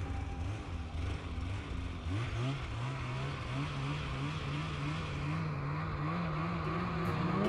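Polaris SKS 850 snowmobile's two-stroke twin engine running under throttle in deep snow, its pitch rising about two seconds in and then holding steady.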